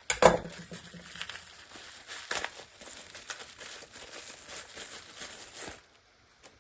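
Packaging crinkling and rustling with many small crackles as the new replacement trigger switch is unwrapped, stopping near the end.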